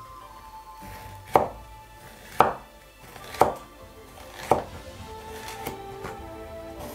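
Chef's knife slicing a green bell pepper into strips on a wooden cutting board: four sharp knocks of the blade on the board about a second apart, then a fainter one, over soft background music.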